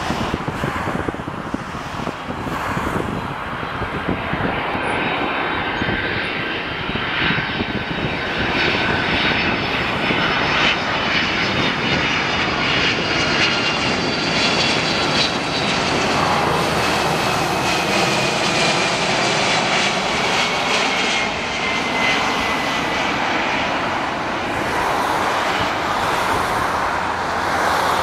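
Twin turbofan engines of a Boeing 767-200ER on landing approach passing overhead. A loud jet rumble builds over the first few seconds, with whining tones that slide lower in pitch as the airliner goes by.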